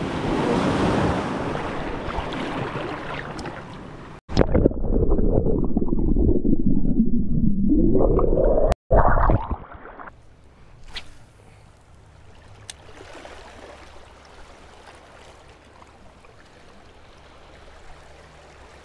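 Seawater at the shoreline: small waves washing in, then a loud, muffled gurgling rush of water for about four seconds. After an abrupt cut, a much quieter, steady low wash of calm water fills the rest.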